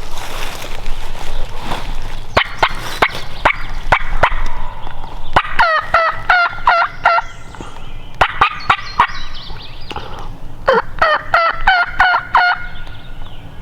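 Turkey calling: three quick runs of repeated yelping notes, the first starting about five seconds in, with a scatter of sharp clicks before them.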